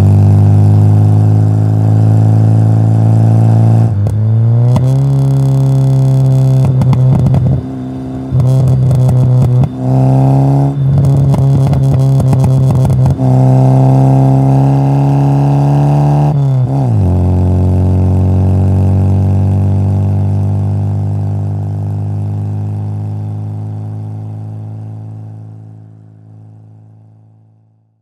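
Classic Mini 1275 cc A-series four-cylinder engine heard from inside the cabin while driving, revs climbing and then dropping sharply about 4 seconds in. A choppy middle stretch follows, with several brief dips in revs. After a last drop about two-thirds of the way through, the revs fall away slowly and the sound fades out.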